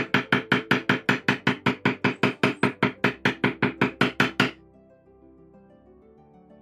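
Poly maul striking a leather beveling tool in quick, even blows, about five a second, driving a bevel into tooling leather laid on a stone slab; the blows stop about four and a half seconds in. Background music plays throughout.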